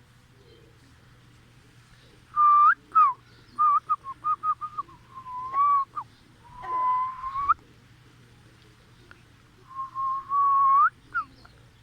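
A person whistling to call chickens: a rising note, then a falling one, then a quick run of short notes, then a swoop. After that comes a long held note that rises at its end, a pause, a second long note that also rises at its end, and a last short note.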